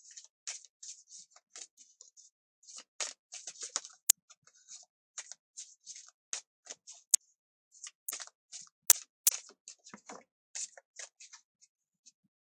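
Tarot cards being shuffled by hand: a run of quick, papery swishes of cards sliding against one another, with a few sharper snaps of card edges. The shuffling stops shortly before the end.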